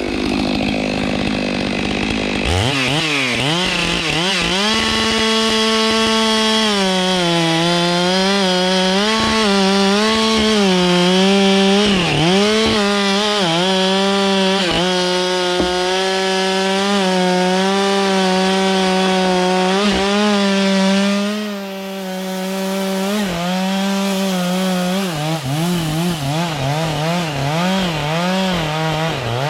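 Stihl two-stroke chainsaw revving up about two seconds in and running at full throttle while cutting kapok wood, its pitch dipping again and again as the chain bites under load. At the very end it drops back off the throttle.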